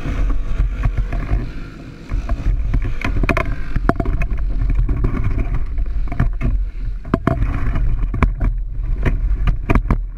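Go-kart rolling slowly over a bumpy grass infield, a steady low rumble broken by frequent sharp knocks and rattles.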